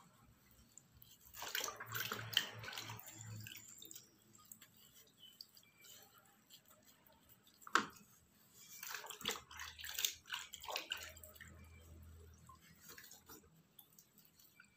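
Faint, irregular rubbing and scuffing of a cloth wiped over the face to lift off a dried face mask, in two spells, with a single sharp click about eight seconds in.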